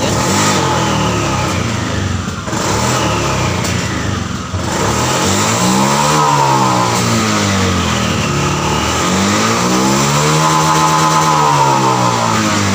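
Honda Vario FI scooter's single-cylinder four-stroke engine being revved up and back down several times with the throttle, the last two revs longer and higher. The complaint being shown is that it stutters at high rpm as if short of fuel (brebet), a fault the mechanic goes after at the throttle position sensor.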